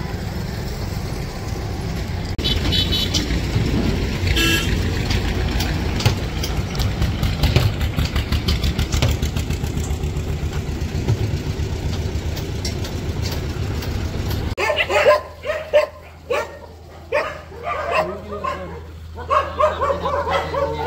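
Road traffic running steadily, motorcycles and vehicles passing, with a brief vehicle horn about three seconds in. About fourteen seconds in the sound cuts to dogs barking.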